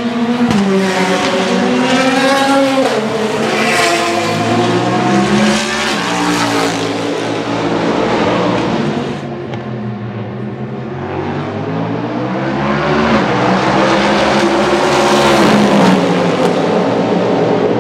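Chevrolet Camaro ZL1 NASCAR Cup race car's V8 accelerating hard as it passes, its pitch climbing and then dropping back at each of several upshifts. About halfway through, a cut brings a second pass, with the engine pitch rising again before another shift.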